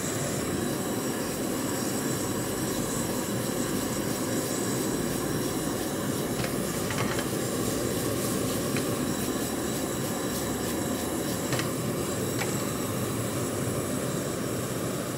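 Steady, loud rush of a high gas flame flaring around a steel pan while the sauce-coated chilli mushrooms are tossed and stirred over it. A few faint taps of the wooden spatula on the pan sound in the middle.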